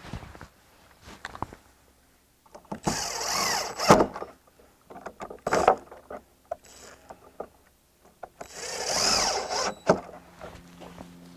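A power drill running in two short bursts, with clicks and knocks of hardware being handled in between.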